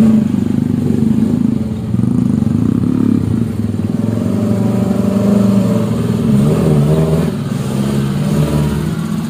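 Suzuki Jimny 4x4's engine working under load as it crawls through mud, its pitch rising and falling with the throttle.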